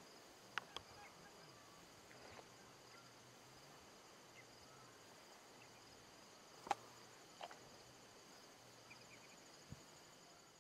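Near silence: faint, steady trilling of insects such as crickets, with a few faint clicks.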